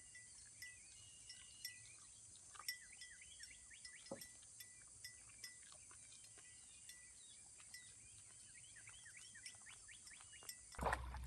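Faint outdoor ambience: small birds chirping repeatedly over a steady high-pitched hiss, cutting off abruptly shortly before the end.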